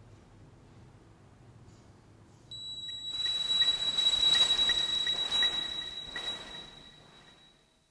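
Electronic synthesizer drone entering suddenly about two and a half seconds in as a steady high tone. A swelling wash of noise and soft regular pings, about three a second, come with it, and all of it fades away near the end.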